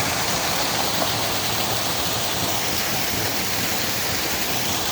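Waterfall pouring right beside the listener: a steady, unbroken rush of falling and splashing water.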